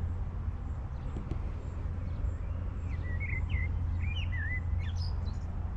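A small songbird sings a short phrase of quick, wavy chirps about three seconds in, over a steady low rumble.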